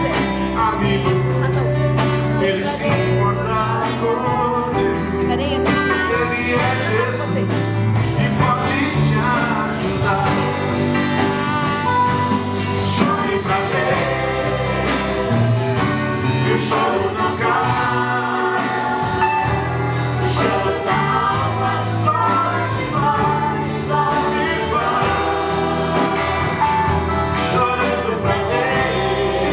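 A song sung over instrumental backing, with a bass line moving between held low notes.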